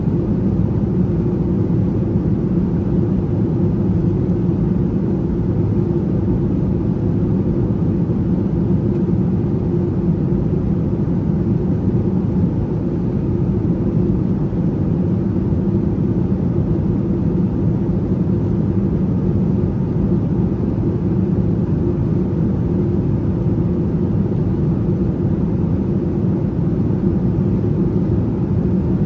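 Steady cabin drone of a Boeing 737-900 airliner in flight: its CFM56 jet engines and the rush of air over the fuselage, a low, even roar with a steady hum under it.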